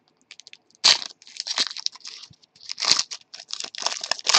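Foil trading-card pack wrapper crinkling and tearing open by hand, in irregular crackly bursts that are loudest about a second in, around three seconds, and near the end.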